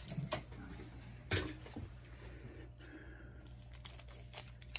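Clear plastic wrapping crinkling and tearing as a new cuckoo clock bellows is unwrapped by hand, with light clicks and one louder knock about a second in.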